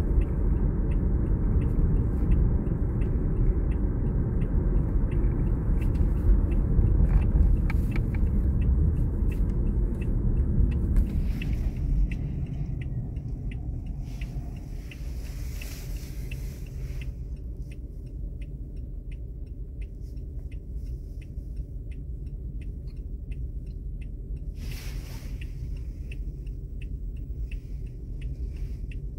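Engine and road rumble heard from inside a Toyota car, loud while moving and dropping sharply about twelve seconds in to a quieter steady idle as the car comes to a stop. A light, regular tick sounds about twice a second throughout.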